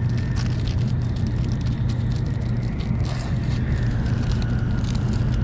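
Plastic wrapper crinkling and crackling in quick irregular bursts as hands tear open a packaged hand towel, over the steady low rumble of a Shinkansen cabin in motion.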